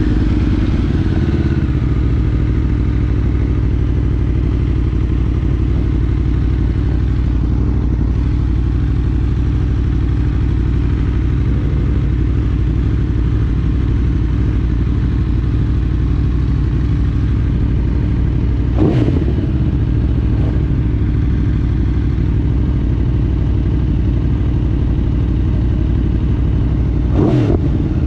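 Aprilia RSV4 Factory's V4 engine running at fairly steady revs while riding, its pitch falling during the first second or so. Brief sharp sounds with a quickly falling pitch come about two-thirds of the way through and twice near the end.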